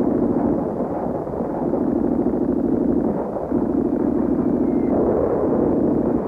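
Dense, muffled rumbling noise that swells and dips every second or two, with no separate shots standing out.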